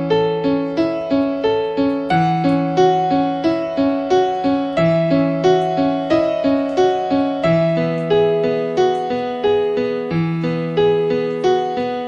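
Background piano music: a gentle melody of evenly struck notes, about three a second, over low bass notes that change every two or three seconds.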